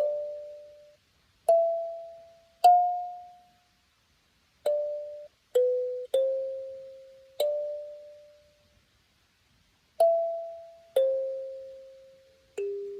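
Background music: a slow, sparse melody of single struck keyboard-like notes, each ringing out and fading before the next. The notes step lower near the end.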